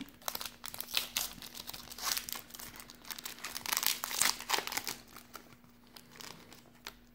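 Plastic wrapper of a Panini Prizm Draft Picks trading-card cello pack crinkling and tearing as it is opened by hand, in irregular crackles that are loudest about four seconds in and thin out near the end. A faint steady hum runs underneath.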